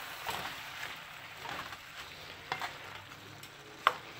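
Spinach, tomato, onion and serrano chile sizzling in hot oil in a pan as they are stirred. The utensil scrapes and knocks against the pan a few times, with a sharp knock near the end.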